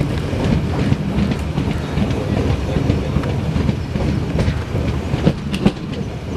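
Metre-gauge passenger coach running along the track, heard from its side: a steady rumble of wheels on rail, with clicks as the wheels pass over rail joints and a few sharper clicks near the end.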